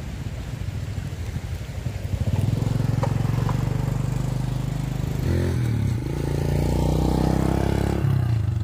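Small motorbike engine passing close by. It gets louder about two seconds in, its pitch shifts about halfway through, and it falls away near the end.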